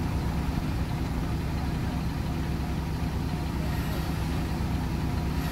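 Heavy diesel engine idling steadily, a low rumble with a fast, even pulse.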